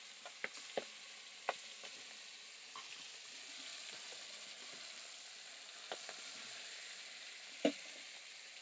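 Fish pieces sizzling steadily as they shallow-fry in oil in a kadai, with a few short sharp clicks and one louder knock near the end.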